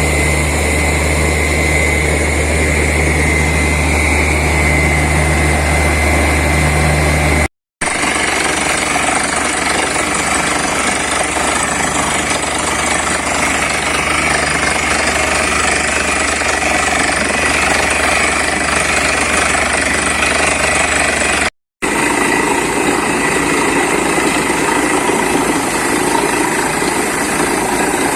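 Borewell drilling rig and its air compressor running loudly and steadily, with a hammering machine din. The sound cuts out abruptly twice, for a moment each.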